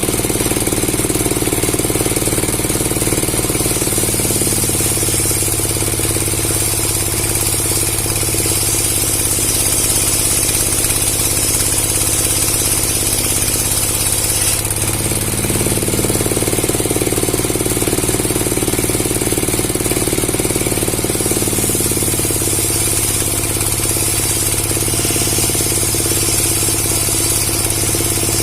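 A motor-driven wood saw running steadily and loudly, its tone shifting a few times.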